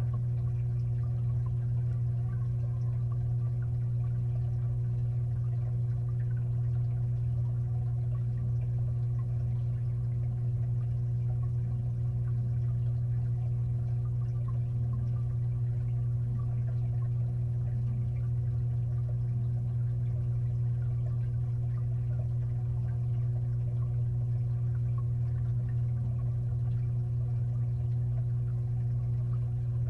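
Aquarium filter running underwater inside the tank: a steady low hum with a constant wash of moving water.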